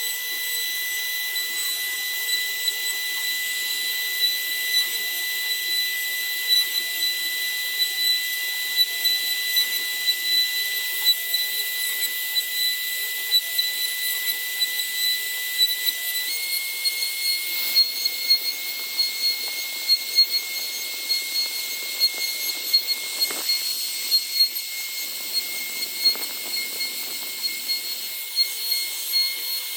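CNC router spindle whining at high speed while it cuts wood, with a hiss of cutting noise. The whine steps slightly higher in pitch about halfway through.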